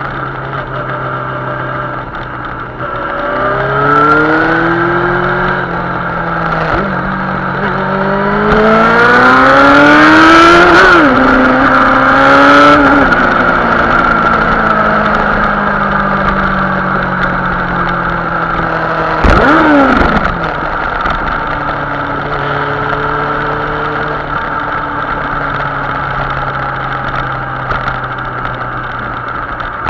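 Yamaha R6 inline-four through a Viper aftermarket exhaust, heard from on the bike. The engine pulls up through the gears with rising pitch, loudest about ten seconds in, then eases back to a steady cruise. There is a quick rev blip about two-thirds of the way through.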